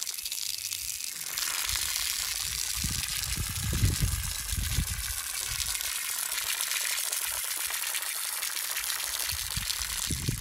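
Steady rushing hiss of flowing water that starts and stops abruptly, with a few low thuds around the middle.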